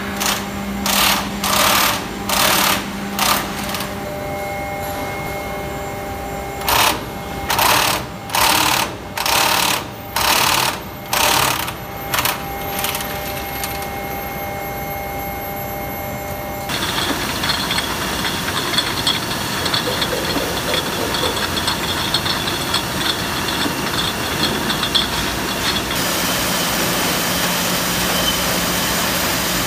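Brewery bottling-line machinery running. First comes a series of regular loud bursts, about one every 0.7 seconds, over a steady hum. After an abrupt change about 17 seconds in, a dense continuous clatter with a high steady whine follows.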